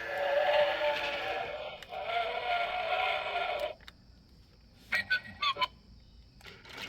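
Electronic sound effects from the remote-control dinosaur toy's small speaker: two long, buzzy, bleating calls, then a few short high chirps about five seconds in.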